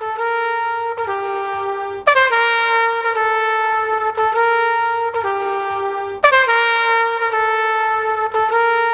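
Instrumental music: a single melody of long held notes in a trumpet-like tone, with new phrases starting sharply about two seconds in and again about six seconds in.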